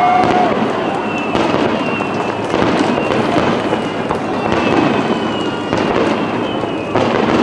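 Fireworks display: a continuous dense crackling of bursting shells, with about five sharper bangs spread through and a few thin high whistles.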